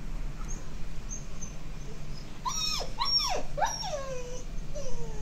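Alaskan Malamute whining: a run of short, high cries from about halfway through, each falling in pitch. The whining of a dog frightened by thunder.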